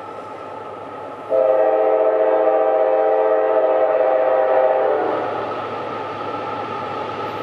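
CSX diesel freight locomotive's air horn sounding one long blast of several notes together, lasting about three and a half seconds, over the steady running of the locomotive's engine as the train approaches.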